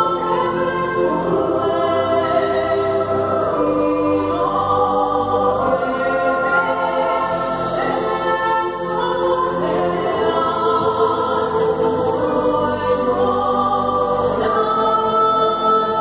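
Music with choir-like voices singing long held chords that move to new pitches every second or two.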